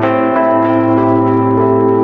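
Background music: sustained tones with bell-like chimes struck over them.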